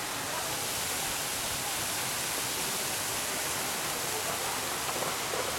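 Steady rush of running creek water, an even hiss with no breaks.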